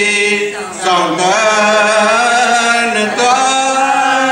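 Voices chanting a Sanskrit guru vandana (invocation to the guru) in long held notes, with short breaks about a second in and again about three seconds in.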